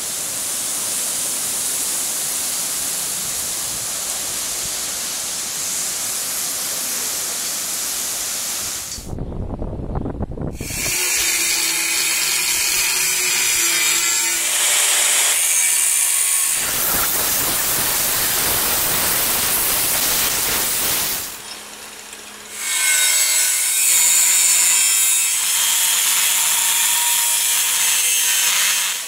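Angle grinder with a cut-off disc cutting through a steel truck leaf spring: a harsh, loud grinding that runs in long spells, drops out briefly about two-thirds of the way through, then resumes. It is preceded by a steady high hiss for roughly the first nine seconds.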